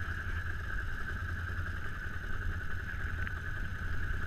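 ATV engines idling steadily, a low rumble with a constant higher hiss on top.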